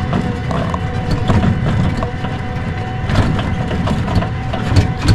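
Kuba GL 1800 MAX tricycle climbing a steep dirt hill in its lowest speed setting: its drive gives a steady whine under load while the frame rattles and knocks over the rough track.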